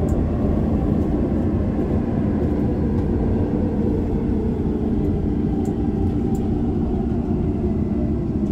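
Sinbundang Line subway train running through a tunnel: a steady low rumble of wheels and running gear on the rails, with a few faint ticks.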